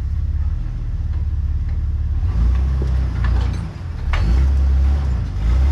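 Off-road vehicle's engine running low and steady while crawling over rock, louder from about two seconds in, with a couple of short knocks.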